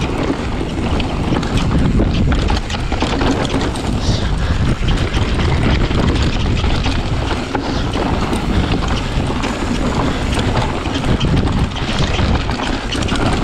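Wind buffeting a GoPro's microphone on a fast mountain bike descent, mixed with the rumble of the tyres over rough natural ground and a steady clatter of small knocks and rattles from the bike over the bumps.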